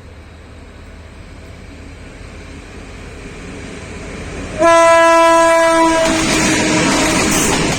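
GM/EMD G26CW-2 diesel locomotive approaching, its rumble growing steadily louder; about four and a half seconds in it sounds its horn, one loud steady blast of about a second and a half. The train then passes close by, its wheels clattering over the rail joints.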